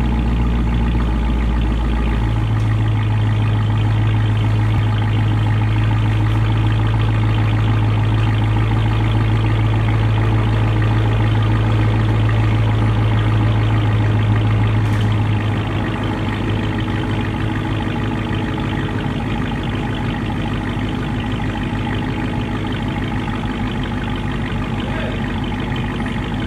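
A 2019 Dodge Challenger Redeye's supercharged 6.2-litre HEMI V8 idling steadily through two Vibrant 1769 mufflers and quad tailpipe tips, with a deep, low exhaust note. The note shifts about two seconds in, and the idle settles a little quieter about fifteen seconds in.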